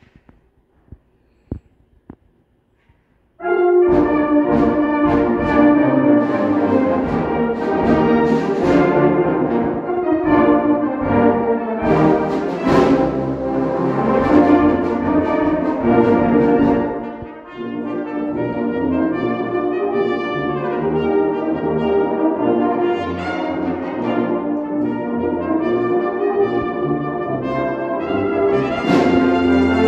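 Brass band playing, coming in suddenly about three and a half seconds in after a few faint clicks, with a cornet soloist out in front. The music eases briefly a little past halfway, then builds again.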